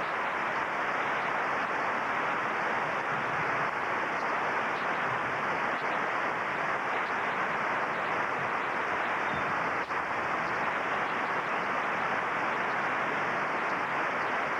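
Steady applause from a large tennis-stadium crowd, heard through an old TV broadcast recording.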